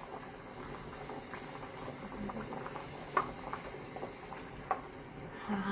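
A pot of water with carrots and broccoli boiling steadily on the stove. A wooden spoon taps against a plate twice as chopped green onions are pushed into the pot.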